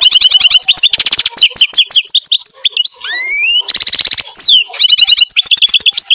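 Lovebird chattering loudly: rapid strings of sharp chirps and clicks, with a couple of rising whistles about midway and two dense bursts of chatter.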